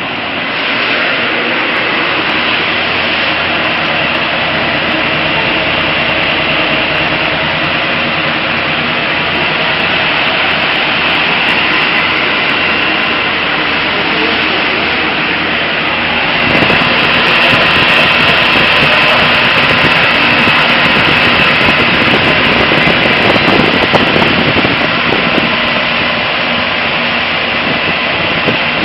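Firbimatic hydrocarbon dry-cleaning machine running, a steady machine noise that gets louder a little past halfway.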